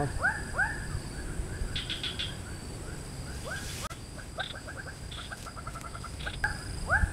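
A bird calling in a long series of short, falling notes, about three a second. The notes fade, quicken into a rapid run a little past the middle, then return louder near the end.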